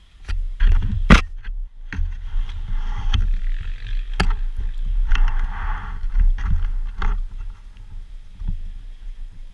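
Enduro motorcycle ride heard through a mounted camera: a heavy low rumble of wind buffeting and the bike's running, with sharp knocks and thumps, the loudest about a second in and another about four seconds in.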